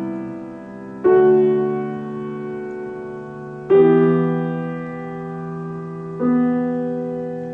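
Slow solo piano music: sustained chords struck about every two and a half seconds, each left to ring and fade.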